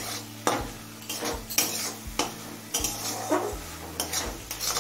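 Metal spatula scraping and knocking against a metal kadai, about two strokes a second, as a thick masala paste with ginger-garlic paste is stirred and fried down in oil.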